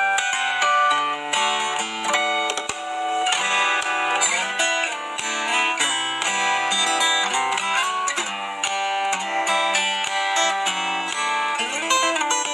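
Solo acoustic guitar played fingerstyle: a continuous stream of plucked melody notes over bass notes and occasional strummed chords.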